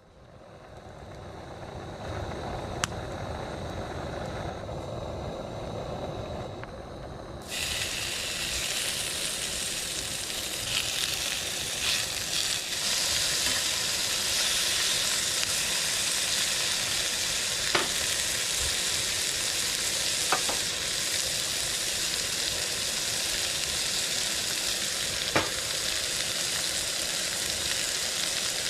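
Food frying in a pan, sizzling steadily. The sizzle jumps louder and brighter about seven seconds in, with a few sharp pops.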